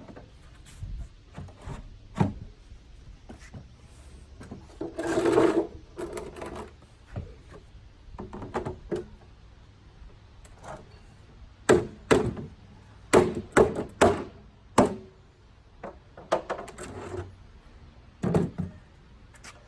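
Molded plastic spa step treads being fitted into a plastic sidewall. Near the start there is a longer sliding rub. Then come scattered sharp knocks, bunched in a quick run past the middle, as the treads are tapped home with a rubber mallet so they seat fully.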